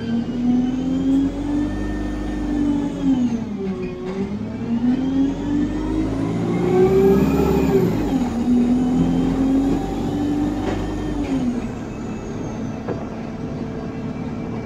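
ADL Enviro 200 bus pulling away under power, heard inside the saloon, with the loud whine of its Voith automatic gearbox. The pitch climbs and then drops sharply at gear changes about four and eight seconds in, and the sound eases off after about eleven seconds.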